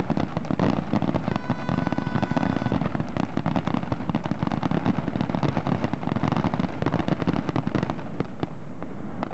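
Aerial fireworks barrage: a rapid, dense run of shell bursts and pops, many a second, thinning out near the end.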